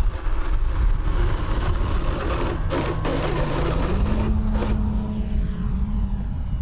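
Electric motor and propeller of a SebArt Miss Ultimate 50E aerobatic biplane powering up for takeoff: a steady propeller hum that steps up in pitch about four seconds in as the throttle opens, over a rushing hiss.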